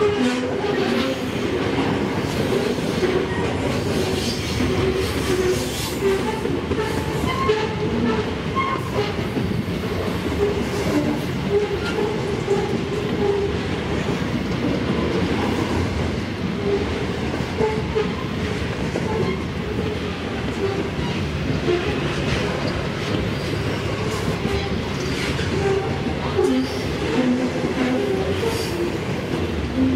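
Freight train wagons rolling past: a continuous rumble and rattle of steel wheels on the rails, with frequent short metallic squeaks and clanks.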